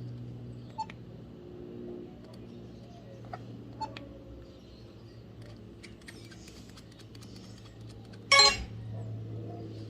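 A few faint clicks over a low steady hum, then about eight seconds in a short, bright electronic chime from a BlackBerry Curve 8900's speaker, lasting about a third of a second.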